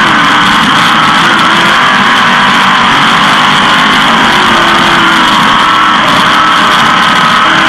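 360 sprint car's V8 engine running loud and hard at high revs, its pitch holding nearly steady with small shifts.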